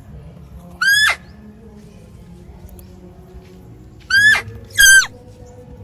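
Short, high-pitched animal calls, three of them: one about a second in, then two close together near the end, each dropping sharply in pitch as it ends.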